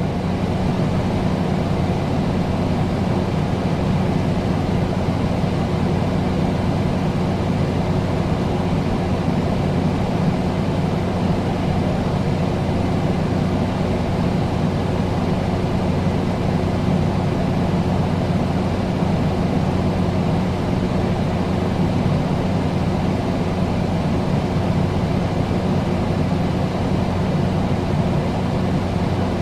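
Air conditioner running steadily: an even rush of air over a low electric hum that holds the same pitch and level throughout.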